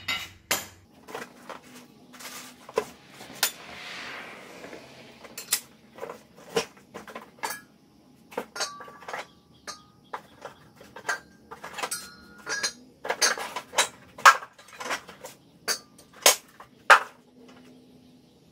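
Steel aerator parts (tine assemblies and brackets) being lifted out of a cardboard box and set down on a concrete floor: a long irregular string of metal clanks and clinks, some ringing briefly. There is a brief rustle about four seconds in.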